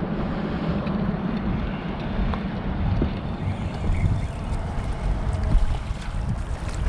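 Wind buffeting the microphone as a steady, gusting rumble, with a faint wash of water underneath.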